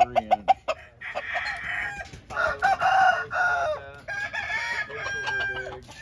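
Roosters crowing: three long crows one after another, after a quick run of clucks in the first half-second.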